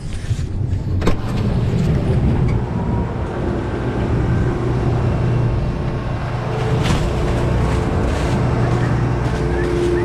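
John Deere S660 combine running with its threshing machinery engaged while it clears out, giving a loud, steady mechanical hum. A sharp click sounds about a second in.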